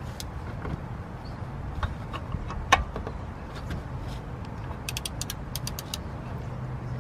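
Metal clicks and knocks from a cap-type oil filter wrench being worked against a stuck oil filter housing, with a quick run of light clicks about five seconds in. A steady low hum lies underneath.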